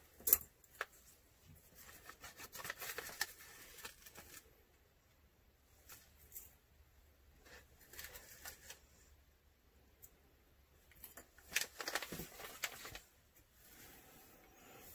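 Small plastic bag of chunky glitter being handled and crinkled while glitter is shaken into a plastic cup. Faint, scattered rustles and light ticks, in short spells about three seconds in and again near twelve seconds.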